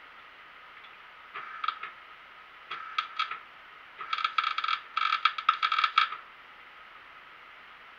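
Wire-feed (MIG) welder arc crackling in four short bursts, the last two longest, stopping about six seconds in.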